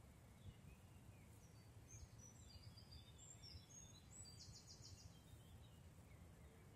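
Faint songbird calls: a scatter of short high chirps and whistles, then a quick high trill about four seconds in, over a low steady rumble.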